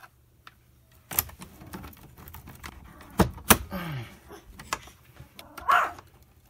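A few clicks and then two sharp metal knocks in quick succession from the heavy-duty coil spring and its fittings inside a centrifugal casting machine as the spring is let go. A dog barks once near the end.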